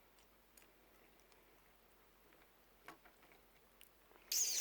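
Quiet eating of cereal from a bowl: a few faint clicks, then near the end a louder hissing rustle.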